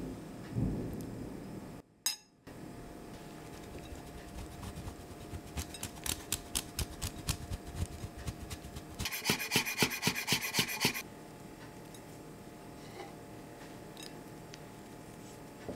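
Parmesan cheese being grated: two runs of quick rasping strokes, the second louder and denser, from about two-thirds of the way in.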